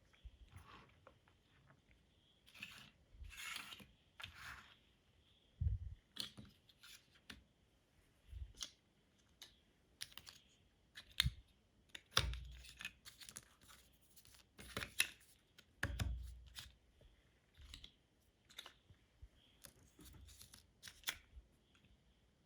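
LEGO bricks being handled and pressed together: irregular sharp plastic clicks and short rustles, with a few soft thumps on the table.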